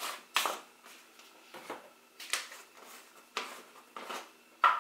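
Spice jars being handled on a kitchen counter: a run of about seven short taps and clinks, the loudest near the end.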